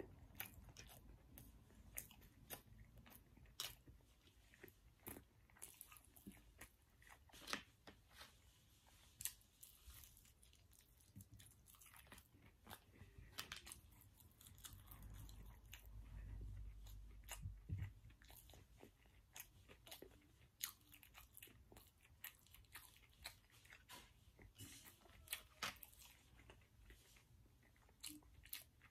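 A person chewing soft food with the mouth closed, heard close up: faint, wet mouth clicks and smacks at an irregular pace. A low rumble comes in for a few seconds midway.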